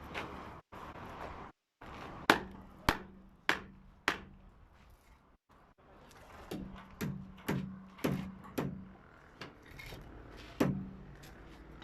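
Hammer blows driving nails into timber formwork, in runs of about two a second: four strikes, a pause, five more, then one last blow near the end, each with a short low ring.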